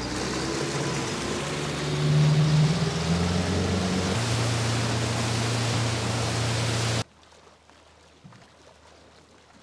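Suzuki outboard motor running under way with the rush of water and wind, revving up over the first two seconds, then holding steady. The sound cuts off suddenly about seven seconds in.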